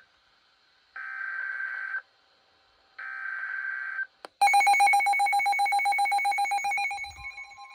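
Emergency Alert System SAME header data, two harsh buzzing digital bursts about a second long and a second apart. About four and a half seconds in, a loud, rapidly pulsing emergency alert tone starts and eases off slightly near the end.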